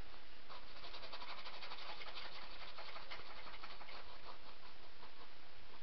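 Paintbrush scrubbing and dabbing acrylic paint onto stretched canvas: rapid scratchy strokes, many a second, starting about half a second in and thinning out near the end.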